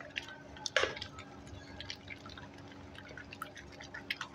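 Ghee being rubbed by hand with ice in an aluminium pan, making wet squelches, drips and small clicks, with one louder wet splat about a second in. The ghee is being worked in circles until it turns white and creamy.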